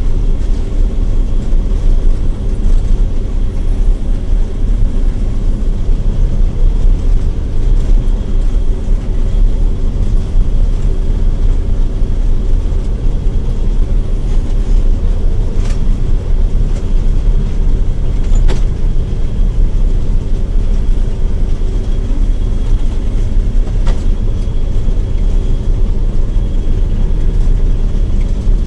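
John Deere 9700 combine harvester running steadily while cutting wheat: a constant low machine drone with a faint high whine, and a few faint clicks in the second half.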